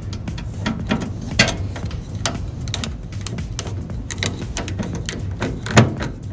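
Irregular clicks and knocks of metal parts and screws being handled as a microwave is reassembled after a door-switch replacement, with two louder knocks, about a second in and near the end, over background music.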